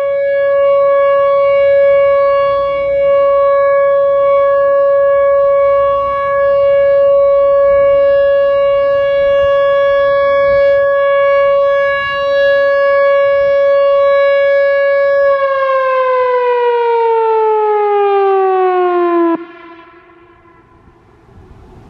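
Whelen Vortex R4 rotating outdoor warning siren sounding its steady full-alert tone, then winding down: the pitch falls smoothly for about four seconds before the sound drops away sharply near the end, leaving a faint low rumble.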